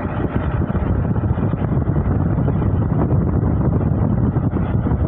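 Steady low rumble of a vehicle on the move, with wind noise on the microphone.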